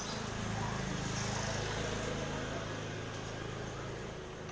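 An engine running steadily, getting louder about a second in and fading near the end.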